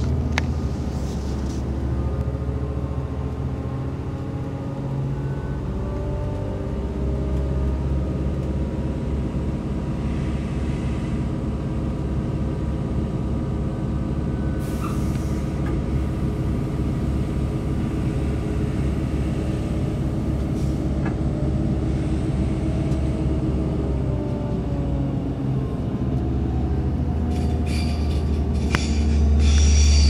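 Passenger train running, heard from inside the carriage: a steady low rumble with a whine of several tones. Near the end the rumble gets louder and high wheel squeal sets in.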